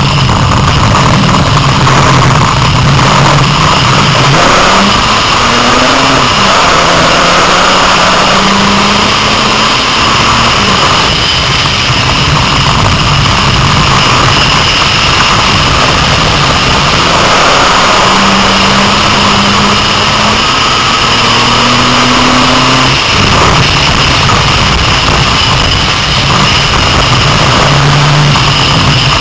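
A pack of six-cylinder dirt-track stock cars racing around an oval, engines running hard as they pass. Engine pitch repeatedly climbs as cars accelerate, then drops back.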